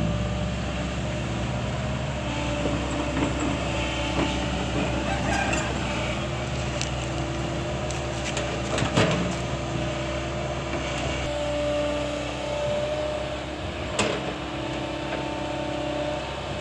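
Kobelco hydraulic excavator's diesel engine and hydraulics running steadily as the machine digs, with a sharp knock about halfway through and another near the end.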